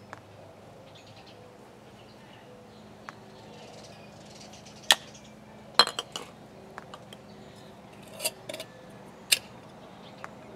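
Small glass jars clinking and knocking against each other as they are picked up and set down among a cluster of jars, a handful of sharp separate clinks, the loudest about five, six, eight and nine seconds in.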